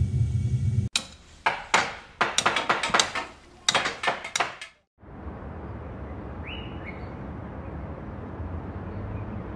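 A low rumble cuts off, followed by a quick, irregular run of about a dozen hammer knocks and bangs over some four seconds: construction sound effects. Then a steady outdoor ambience hiss, with a single short bird chirp partway through.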